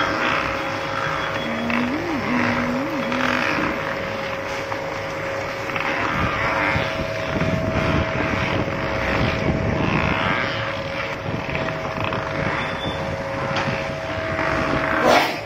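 Motorised oil chekku running, its pestle turning through oilseed pieces in a steel mortar: a steady motor hum under an uneven crushing, grinding noise. A single sharp knock near the end.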